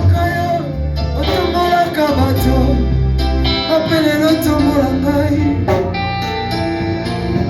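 Worship song: a singing voice over a band with bass and guitar.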